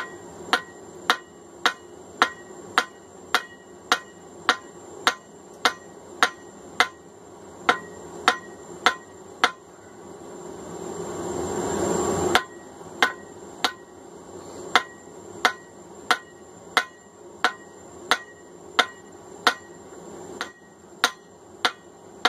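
Hand hammer blows on hot steel on the anvil, about two a second, each with a short ring, drawing out the peen of a hammer head on a diagonal. The strikes pause for about three seconds midway while a rushing noise swells, then they resume.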